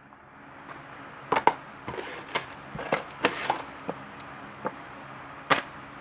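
Irregular small metallic clicks and taps, about a dozen, as a padlock and lock-picking tools are handled and set down on a work surface; the loudest tap comes near the end.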